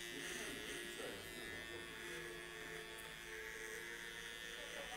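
TPOB Troll cordless hair trimmer fitted with a Psycho blade, buzzing steadily as it cuts hair around the ear and beard line.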